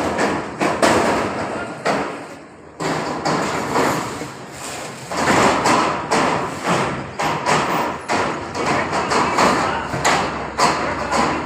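Irregular knocks and thumps of metal pipes being handled and struck during shed-frame work, many in quick succession, with a short lull about two and a half seconds in.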